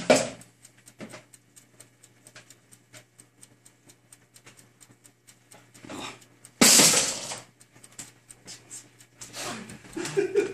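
Faint, rapid clicking, then a loud, brief rush of noise about six and a half seconds in as processed cheese is tipped from a metal bowl into a pot of pasta on the stove.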